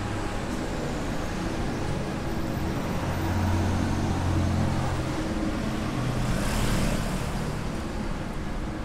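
City street traffic: vehicle engines running with a low hum that grows louder in the middle, and a brief hiss about six and a half seconds in.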